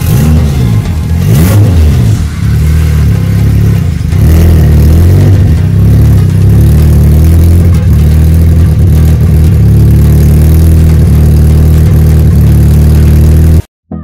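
Turbocharged Honda S2000 four-cylinder engine heard at the exhaust, revved in quick blips for the first two seconds, then held at a steady high rpm. It cuts off suddenly near the end.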